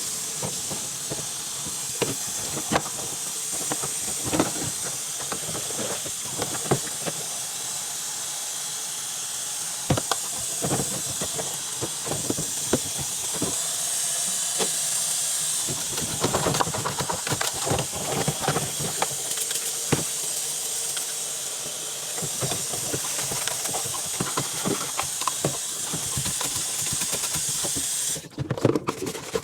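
Water running steadily from a tap, rinsing the washer's plastic soap dispenser drawer, with knocks and clatter as the drawer is handled and scrubbed under the stream. The water cuts off abruptly near the end.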